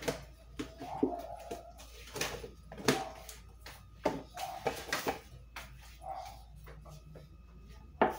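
Irregular clicks and knocks of hard plastic: a powder laundry detergent tub being closed and put down, then a plastic fabric softener bottle being picked up, over a top-loading washing machine.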